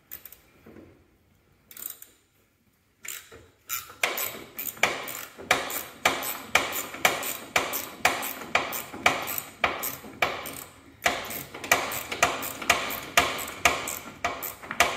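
Hand ratchet wrench clicking about three times a second as its handle is swung back and forth, turning the seat-mounting screw on a Cub Cadet garden tractor. The clicking starts about three seconds in.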